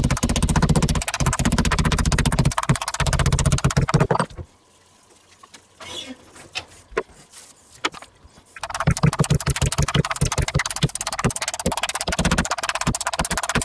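A spiked metal meat mallet pounding pork neck on a wooden cutting board in fast, repeated knocks, flattening and tenderising the meat. The pounding stops for about four seconds in the middle, leaving only a few faint sounds, then starts again.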